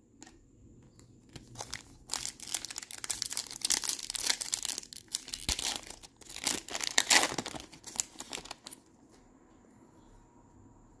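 Topps Chrome trading-card pack wrapper crinkling as it is torn open by hand, a dense crackling that comes and goes in two louder spells and stops a couple of seconds before the end.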